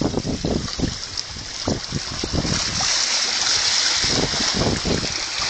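Wind buffeting the microphone in uneven gusts over the wash of lapping water; the water's hiss grows brighter for a couple of seconds in the middle.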